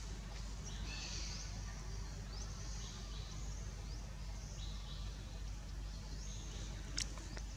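Outdoor forest ambience: faint high chirps and short downward-sliding squeaks come and go throughout over a steady low hum, with one sharp click about seven seconds in.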